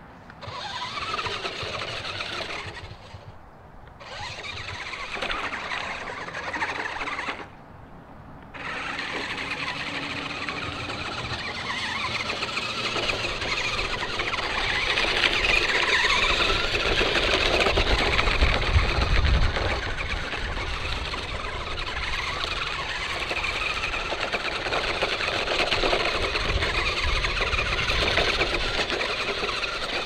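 Battery-powered Ruko 1601AMP2 4WD RC truck's electric drive motors and gears whining as it drives over grass and gravel. It stops twice for about a second near the start, then runs without a break.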